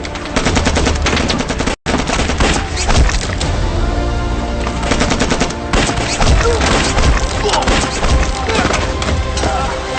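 Heavy gunfire in rapid, overlapping bursts, machine-gun fire among it, over a dramatic music score; the sound drops out completely for an instant a little under two seconds in.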